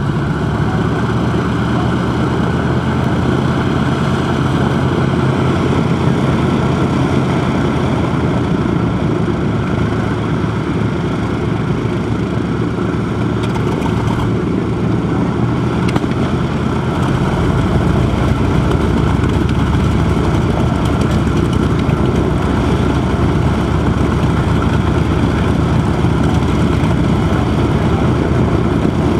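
Radial piston engines of warbird aircraft running on the ground at low power, a steady propeller-driven rumble. The later part is a North American T-28 Trojan's radial engine idling, and the rumble turns deeper and fuller about two-thirds of the way through.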